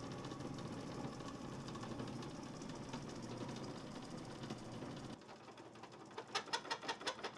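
Homemade Gingery metal lathe running while a boring bar cuts through the tailstock under lead-screw feed: a steady mechanical hum. About five seconds in it drops abruptly to a quieter run with a rapid series of sharp clicks.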